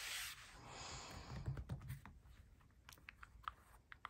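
Soft rustling, then a string of light clicks and taps from about a second and a half in, as a Nike x Sacai Vaporwaffle sneaker is handled on a desk.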